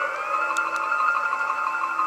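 A siren-like electronic tone that glides up, then holds steady with a fast, regular pulsing warble.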